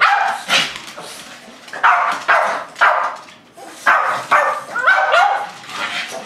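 Cavalier King Charles Spaniels barking about ten times, high sharp barks often in quick pairs, some rising in pitch. They are begging for food held up out of reach.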